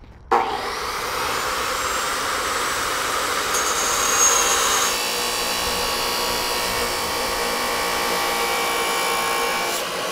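Abrasive chop saw starts suddenly and cuts through metal pipe, a steady loud whir with a harsh, high grinding edge. The grinding is loudest a few seconds in, and the saw winds down near the end.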